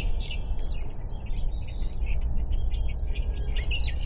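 Several small birds chirping and twittering over a steady low rumble.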